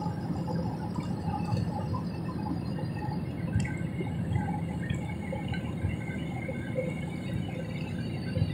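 Steady airliner cabin noise from a window seat beside the wing: jet engine running and air rushing past the fuselage during the climb after takeoff, a low, even rumble.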